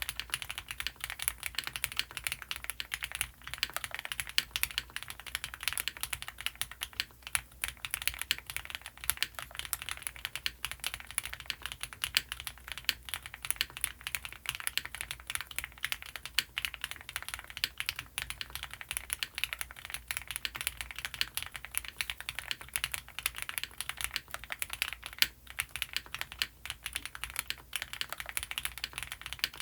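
Continuous fast typing on a custom mechanical keyboard: an Owlab Mr. Suit fitted with lubed Gateron CJ linear switches, Geon EPT plate foam and GMK Serenity doubleshot ABS keycaps. The keystrokes come as a dense, unbroken stream of clacks.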